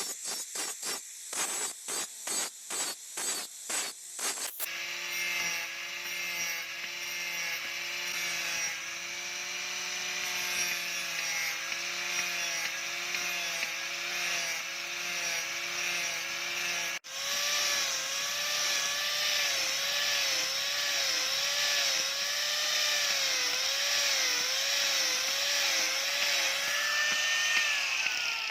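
Steel being worked by hand with about three scraping strokes a second, like a file or hacksaw. Then a power tool grinding steel runs steadily, its pitch rising and falling over and over as it is pressed and worked across the metal.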